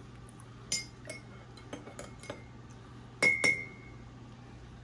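Metal spoon stirring coffee in a mug, clinking against the sides: several light clinks, then two louder ringing clinks about three seconds in.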